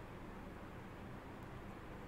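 Faint steady hiss of room tone, with no distinct events.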